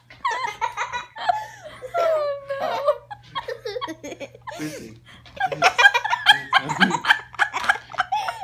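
Hearty human laughter in rapid, pulsing bursts, with squealing rising and falling tones early on and the loudest, fastest laughing in the second half.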